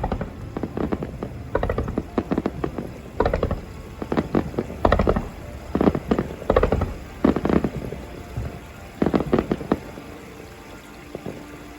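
Fireworks shells bursting in quick succession, each a deep boom with a cluster of crackles, about one a second, thinning out near the end.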